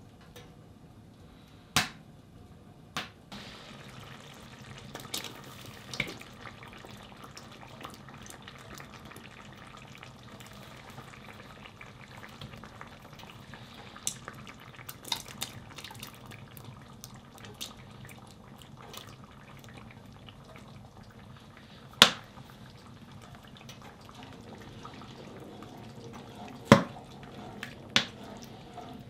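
Tripe stew cooking in a cast-iron pot on a wood stove, with a steady sizzling and simmering as liquid is poured in. A wooden spoon knocks sharply against the pot several times, the loudest about three-quarters of the way through.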